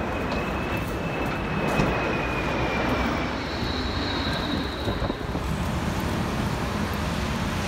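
Jet airliner flying low overhead: a steady rush of engine noise carrying a thin high whine, which gives way to a higher whine midway, over city street noise.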